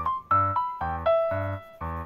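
Background music: a piano-like keyboard playing a melody over a repeating low accompaniment, about three notes a second, each note fading after it is struck.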